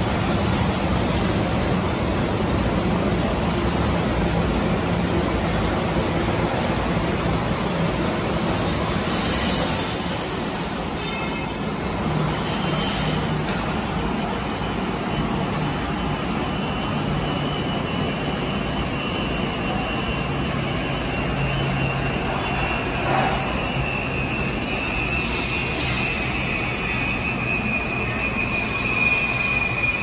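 Glass tempering furnace line running: a steady, loud rushing noise from its large centrifugal quench blower, with a low hum underneath. There are brief bursts of hiss about nine and twelve seconds in, and a high whine comes in about two-thirds of the way through.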